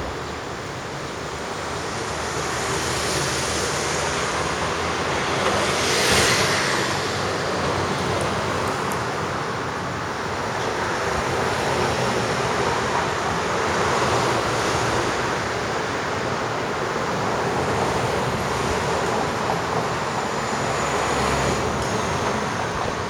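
Road traffic noise: vehicles passing one after another, the noise swelling and easing every few seconds, with one brief louder pass about six seconds in.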